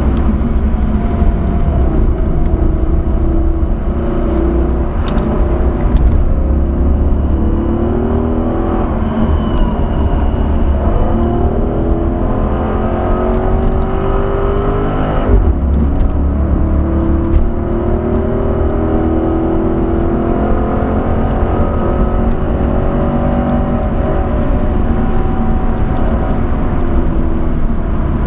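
Dodge Charger SRT's V8 engine heard from inside the cabin, accelerating hard with its revs climbing, dropping sharply about halfway through, then climbing again, over steady road and tyre noise.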